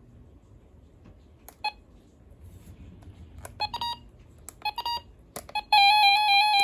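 Key-press beeps from a RadioShack 12-262 weather alert radio as its buttons are pressed, a handful of short beeps, then a loud warbling alarm tone lasting about a second and a half near the end.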